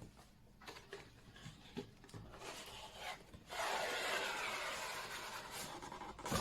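Unboxing handling of the keyboard's packaging: a few soft taps and clicks, then, from about three and a half seconds in, nearly three seconds of steady rubbing and rustling as the packaging is worked.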